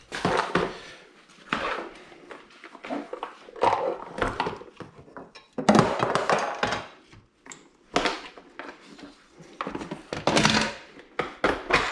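Irregular knocks, thunks and scrapes of a metal TV wall-mount bracket being handled and set against a wooden wall.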